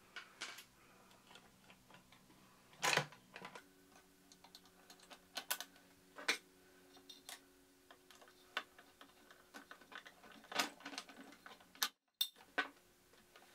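Scattered light clicks and knocks of small screws and a metal bracket being handled and fitted against the plastic housing of a food mixer, the loudest knock about three seconds in, over a faint steady hum.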